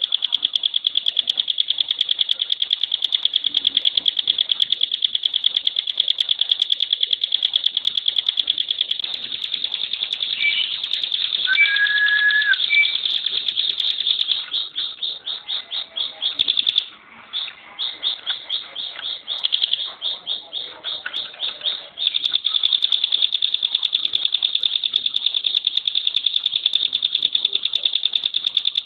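Ciblek, a prinia kept as a songbird, singing its 'tembakan' song: a fast, high, rattling trill whose notes run together. About halfway through it breaks into separate rapid notes, several a second, then runs together again. A short lower whistle sounds briefly before the break.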